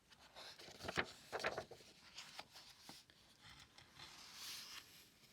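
Faint rustling and a few light taps from handling a picture book, with a soft rustle near the end.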